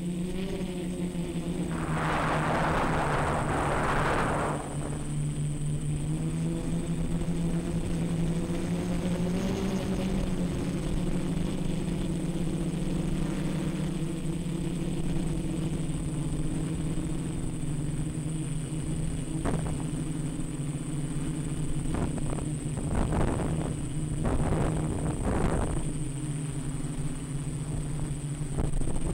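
Quadcopter's electric motors and propellers running in flight, a steady buzzing hum that shifts a little in pitch with the throttle. A hissing rush comes in about two seconds in, and several shorter rushes come near the end.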